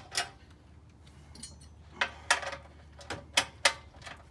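About five sharp metallic clicks and clinks, spread out with quiet between them, from a cordless driver and small steel engine bolts being handled.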